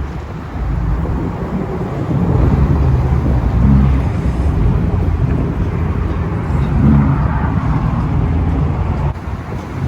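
Car engine running while driving, its note swelling twice, about three and a half and about seven seconds in.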